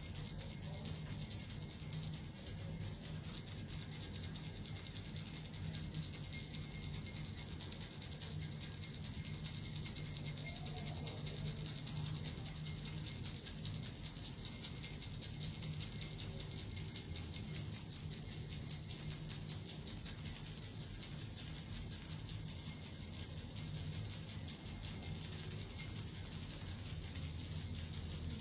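Small jingle bells (suzu) shaken continuously in a fast, even, shimmering jingle.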